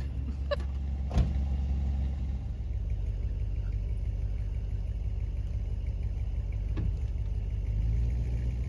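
Motorhome engine running with a steady low rumble as it tows a car on a strap. A sharp knock sounds about a second in.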